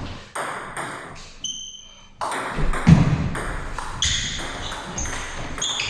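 Table tennis rally: the celluloid ball clicking off the bats and bouncing on the table, several bounces ringing with a short high ping, the loudest hit about three seconds in.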